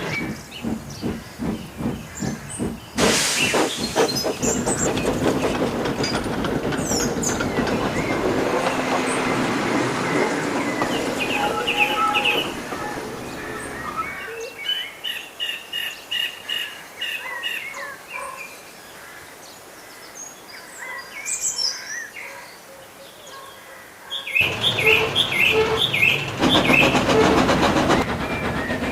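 Railway sound effects of engines running fast on the rails, with regular beats and wheel clickety-clack. About halfway through it drops quieter for roughly ten seconds, then comes back loud near the end. Short high chirps sound over the quieter stretch and again near the end.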